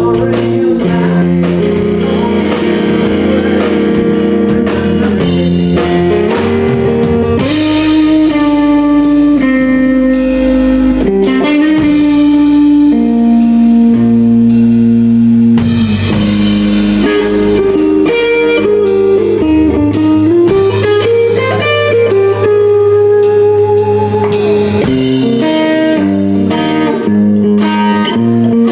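Live blues-rock band: a Stratocaster-style electric guitar plays a lead solo of held notes over drums. About two-thirds of the way in, one note bends up and back down.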